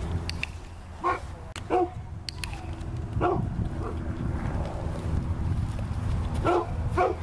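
Young shepherd dog giving about five short barks and yips while heeling and jumping up at the handler, with a steady low wind rumble underneath.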